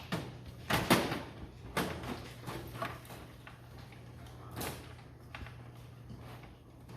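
Computer power supply unit being fitted into a metal PC case: a string of knocks and short scrapes, the loudest about a second in, with a few more scattered through.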